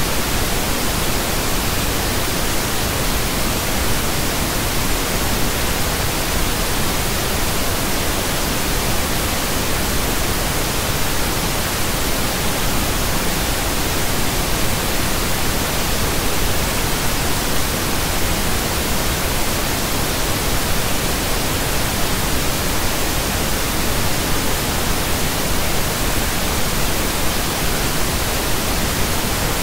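Steady pink noise: an even, unchanging hiss spread across the whole range from deep to high.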